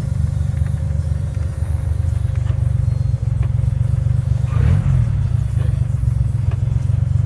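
Daihatsu Hijet 1000 engine idling steadily, a low, even rumble close by.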